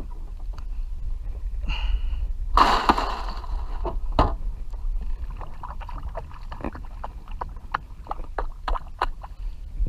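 A splash of water as a redfish is let go over the side about two and a half seconds in, followed by a run of small clicks and knocks of gear being handled on a plastic kayak, over a low steady rumble.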